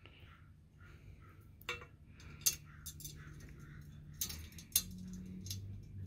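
Small metal hardware clinking and clicking as washers and a screw are handled and fitted onto a motorcycle latch beside a chrome rack: a few scattered sharp ticks over a faint low hum.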